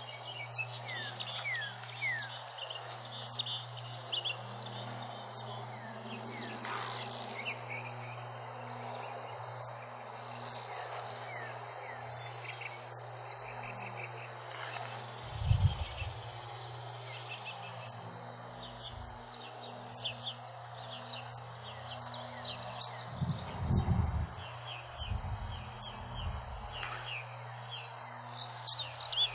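Field insects chirping, with sharp regular ticks and short falling chirps. A high steady buzz joins about a third of the way in. Under it runs a steady low hum, and brief low rumbles come around the middle and again later.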